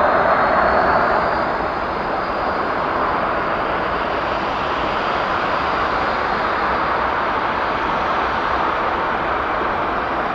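Boeing 737's CFM56 turbofan engines running at low taxi thrust: a steady jet rumble and hiss that eases slightly about a second and a half in, with a faint high whine fading out over the first few seconds.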